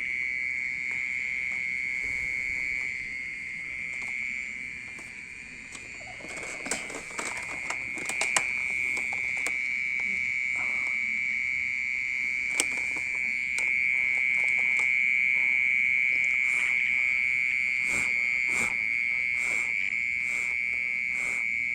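A very loud, steady high-pitched ringing drone held on one pitch without a break, the call of an unseen insect hidden in the soil of a flower pot; it sounds like a water pump motor more than a cricket's chirp. Leaves are rustled and handled, with a few short clicks, while the drone goes on.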